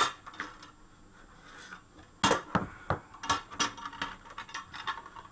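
Ribbed flexible metal arm and its metal fittings being handled: a sharp click at the start, then from about two seconds in a run of irregular metallic clinks and rattles.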